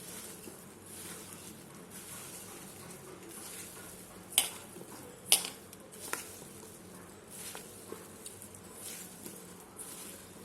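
Soya chunks coated in corn flour, rice flour and soya sauce being mixed in a bowl: a soft, steady rustling stir, with three sharp clicks between about four and six seconds in.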